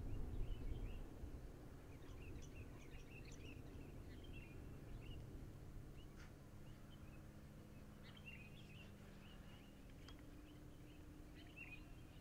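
Small birds chirping in quick scattered calls over a faint low rumble of outdoor noise, which swells briefly in the first second.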